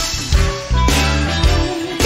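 Background music: a song with a strong, rhythmic bass line, in a short stretch between sung lines.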